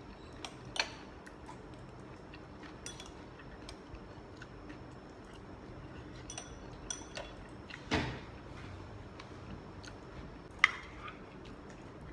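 Cutlery clicking and clinking against a plate or bowl while eating, a few light taps spread out, with a duller knock about two-thirds in and one sharp, louder clink near the end.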